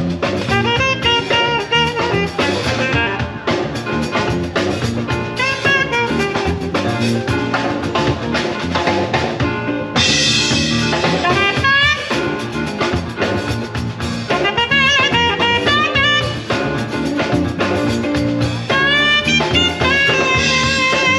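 A live band playing on stage, with a melody that bends in pitch over steady drum hits, heard through its PA.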